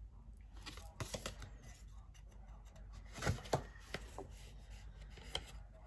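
Soft rustling and light taps of a paper greeting card being handled and opened, with two sharper ticks about halfway through.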